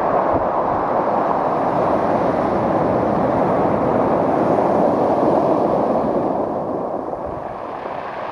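Pacific Ocean surf breaking and washing up the beach: a steady rushing noise that eases off about six seconds in.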